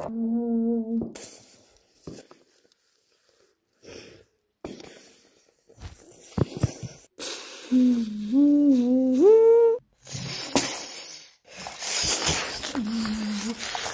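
A person's voice making wordless drawn-out sounds: a brief held hum at the start, then a wavering wail that steps upward in pitch about eight seconds in, with a shorter held tone near the end. Between them there is scratchy rustling noise.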